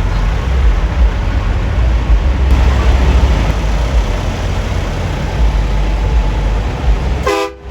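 Deep, steady rumble of big-rig truck engines idling, with a wash of background noise. A brief pitched tone sounds near the end.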